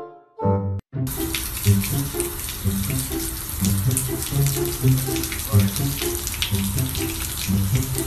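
About a second in, a steady hiss of water from a garden hose starts, the stream splashing onto a raccoon and the concrete floor, with background music continuing underneath.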